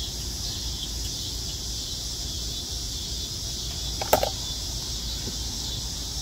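Steady high-pitched chorus of insects, with a low steady rumble underneath and one short sharp click about four seconds in.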